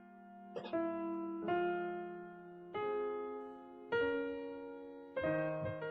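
Background music: slow electric-piano chords, a new chord about every second and a quarter, each fading as it is held.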